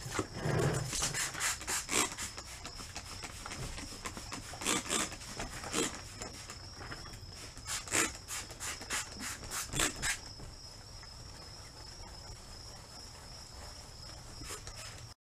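Wet sanding a clear-coated painted fender by hand with 1500-grit sandpaper on a sanding block: repeated back-and-forth scrubbing strokes, louder for the first ten seconds or so, then a fainter steady rub.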